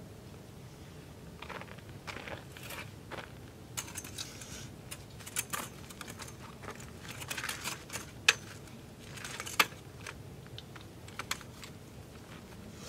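Pet Gear elevated dog cot being folded up: its metal frame clicking and rattling and its mesh fabric rustling, with two sharp snaps about a second apart roughly two-thirds of the way in.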